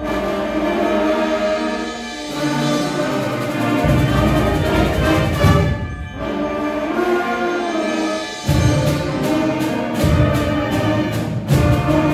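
Student concert band playing, woodwinds and brass together, with short breaks between phrases about halfway through and near the end. The low instruments and drums come in strongly in the last few seconds.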